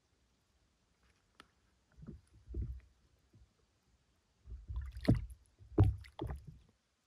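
Water sloshing and lapping close by in two short spells, about two seconds in and again from about four and a half seconds, with a few small splashy ticks.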